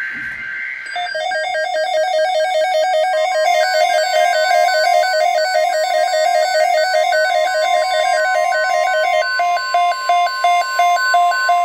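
Weather radio alert: a loud electronic alarm warbles rapidly between two notes and changes to evenly spaced beeps near the end, over a steady high alert tone that starts about three seconds in.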